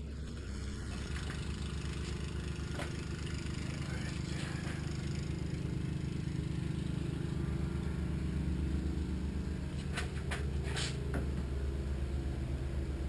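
A steady low machine hum, like a motor running, with a fast flutter in it. A few light clicks or knocks come about 3 seconds in and twice around 10 to 11 seconds in.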